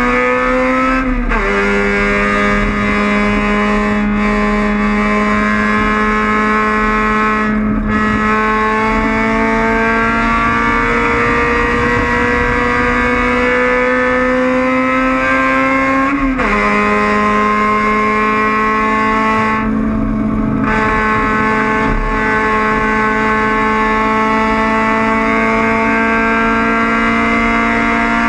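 Honda Civic race car's four-cylinder engine pulling hard at full throttle, its pitch climbing slowly and steadily, with a quick upshift about a second in and another about 16 seconds in.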